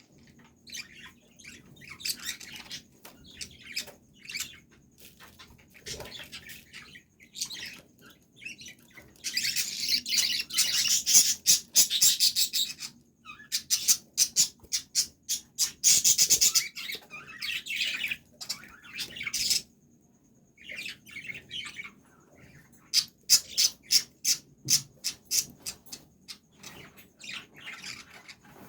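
Small birds chirping in rapid runs of high, quick chirps, with louder, denser spells about a third of the way in and again just past the middle, and a short pause about two-thirds through.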